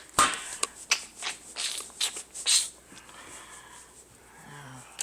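Kitchen handling noises: about half a dozen sharp knocks and rustles in quick succession, then quieter for the last couple of seconds.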